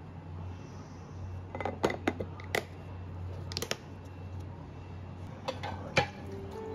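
Clusters of sharp clicks and clacks of kitchenware over a low steady hum: a glass food container's snap-lock lid being clipped shut, then dishes knocking together in a sink as they are scrubbed with a sponge.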